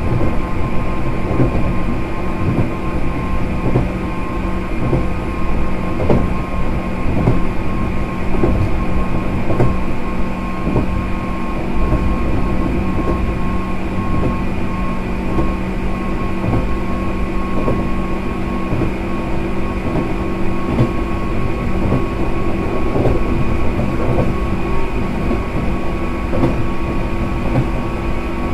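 JR 105 series electric train running at a steady speed, heard inside the car: the MT55A traction motors give a steady high-pitched whine over the rumble of the wheels and frequent clacks from the rail joints.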